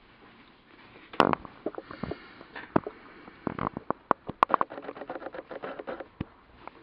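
Bearded dragon chewing a leafy herb: crisp crunching clicks starting about a second in, scattered at first and then coming quickly for a couple of seconds before stopping.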